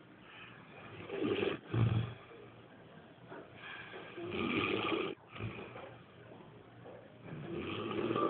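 A person snoring loudly, three snores about three seconds apart, each a long noisy breath.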